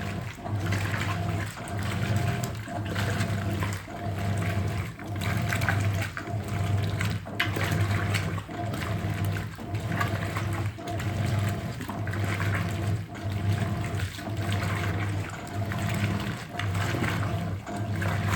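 Hoover 800RL top-loading washing machine agitating: motor hum and water sloshing, the agitator stroke reversing a little over once a second with very little pause between strokes.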